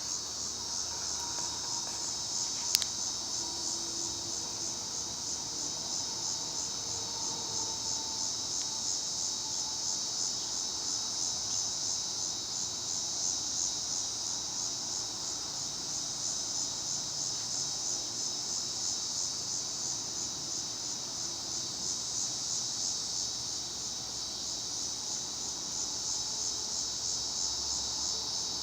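Steady high-pitched buzzing of an insect chorus, with a fast, even pulsing that holds without a break. A single sharp click sounds about three seconds in.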